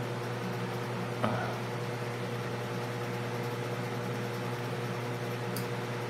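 Steady machine hum in a small room: a low drone with two steady higher tones over a light hiss, with one light click about a second in.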